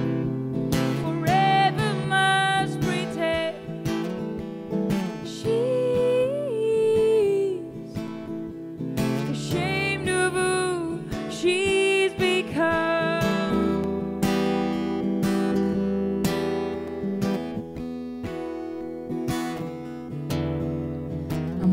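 Acoustic guitar strummed and picked in the instrumental break of a slow singer-songwriter song. A wordless sung melody runs over the chords for roughly the first dozen seconds, then the guitar carries on alone.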